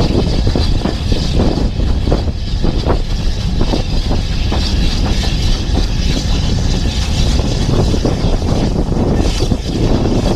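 Steam-hauled passenger train running at speed, heard from an open carriage window: steady rumble of the carriages on the track under heavy wind buffeting on the microphone.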